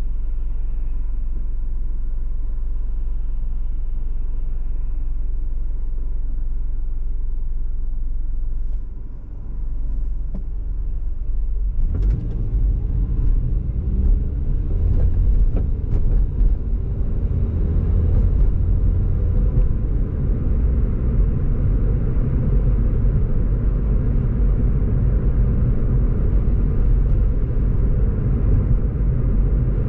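Car stopped in traffic with a low, steady engine hum. About twelve seconds in it pulls away, and the louder rumble of engine and tyre noise carries on as it drives.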